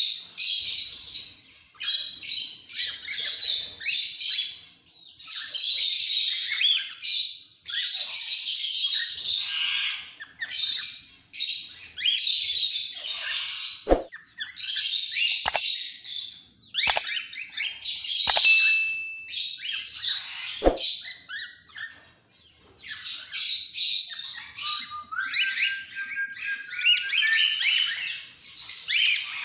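A flock of cockatiels calling, with repeated harsh chirps and screeches. A few sharp clicks fall in the middle, and a rising, stepped whistle comes near the end.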